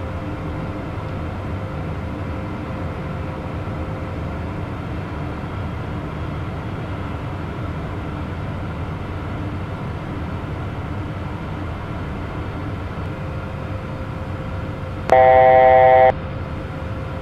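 Steady cockpit noise of a Beechcraft Premier 1A twin-turbofan business jet on final approach, engines and airflow. About two seconds before the end, a loud electronic alert tone from the cockpit sounds once for about a second.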